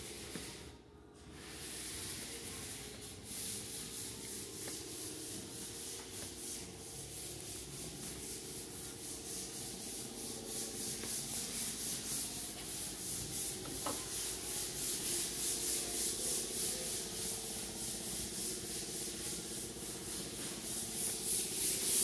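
Steady high hiss of a compressed-air spray rig applying spray-in bed liner. Over it runs a rhythmic scuffing, a few strokes a second, that slowly grows louder.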